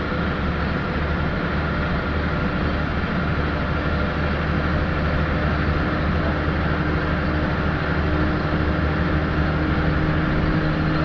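Optare Vecta midibus on the move, heard from inside the saloon: a steady diesel engine drone with road and body noise.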